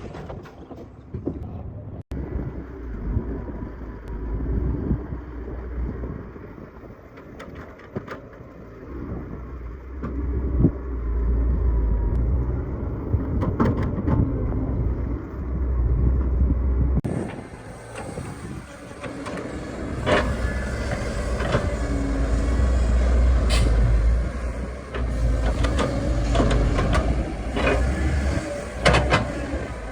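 Excavator at work: a heavy engine rumbling, swelling and easing with the load, with scattered knocks and clanks from the machine digging.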